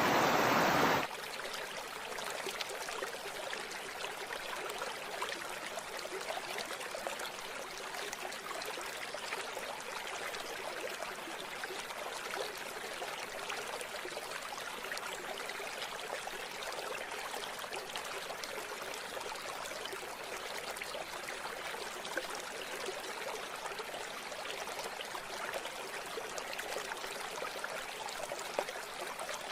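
River water flowing and trickling steadily. For about the first second a louder, fuller rush of water plays, then it cuts off abruptly to the gentler, even stream.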